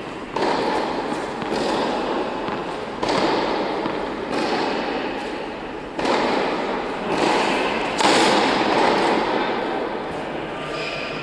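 Tennis ball struck hard by a racket, about six sharp hits spaced one to a second and a half apart, each ringing on with a long echo through a large indoor tennis hall.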